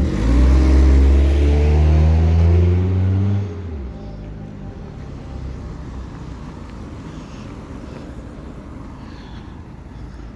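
A loud, deep, horn-like drone of the kind reported as a strange noise from the sky, holding one low pitch for about three and a half seconds, sliding down slightly and cutting off, followed by fainter steady background noise.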